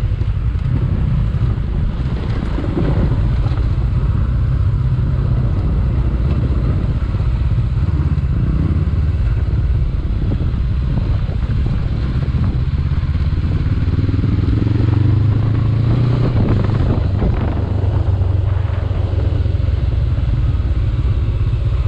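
Honda CB500X's 471 cc parallel-twin engine running as the motorcycle rides over a dirt trail, heard from on board, with the revs rising briefly about fifteen seconds in.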